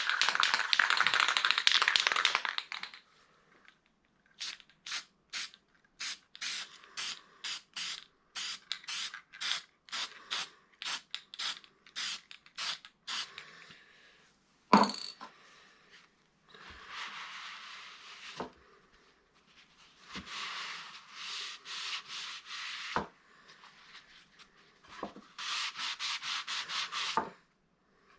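Aerosol spray paint can hissing for about three seconds, then quick short rubbing strokes on the wood of a cutting board, then longer rubbing passes with a single sharp knock about halfway.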